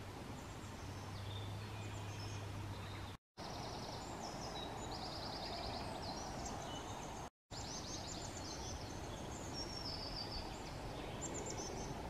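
Small songbirds singing, high thin trills and quick repeated notes, busier from about three seconds in, over a steady background hiss. A low steady hum runs under the first three seconds, and the sound cuts out completely for a moment twice.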